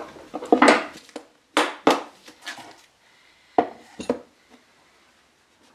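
Several sharp knocks and clatters of tools and wood being set down and handled on a workbench, unevenly spaced, stopping about four seconds in.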